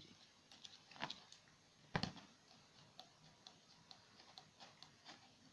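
Faint, irregular light clicks and taps, with two sharper clicks about one and two seconds in: small items being handled in a drone's moulded plastic packaging box.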